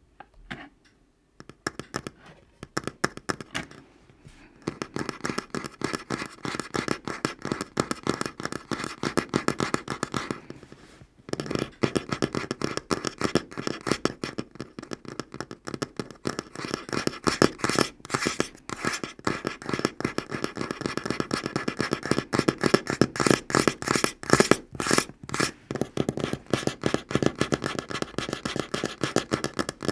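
Natural fingernails tapping fast on a tabletop, a dense stream of sharp clicks that starts a second or two in, with a short pause about ten seconds in.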